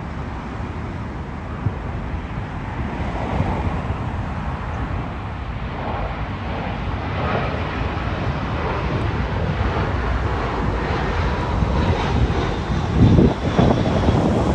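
Jet engines of a British Airways Airbus A319 on final approach with gear down: a steady rushing roar that grows louder as the airliner closes in, with a faint high whine coming in about halfway. Low wind rumble on the microphone near the end.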